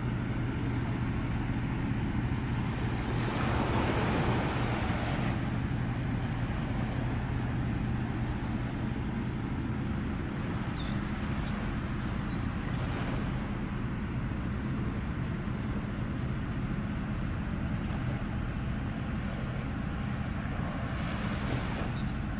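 Small waves lapping on a beach and wind on the microphone, over a constant low hum, with a louder rushing hiss about three seconds in.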